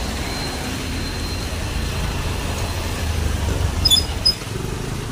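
Street traffic on a wet road: a steady low rumble of passing scooters and autorickshaws. Two short, high-pitched beeps come about four seconds in.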